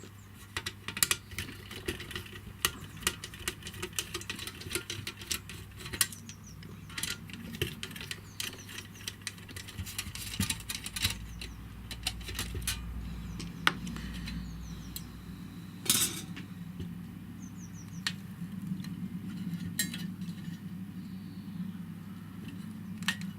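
Small metal clicks and clinks of a screwdriver and screws on the metal casing of a small electric solder pot as it is unscrewed and opened, with one louder knock about two-thirds of the way through.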